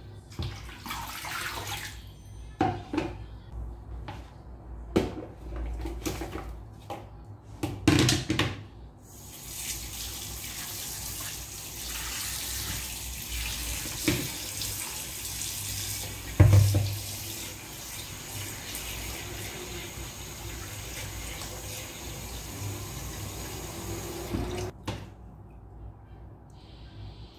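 Kitchen tap running into a plastic basin of fish in a sink, a steady rush of water that cuts off suddenly near the end. Before the tap opens there are irregular splashes and knocks as the basin of water is tipped and handled, with a loud thump about 8 s in and another in the middle of the running water.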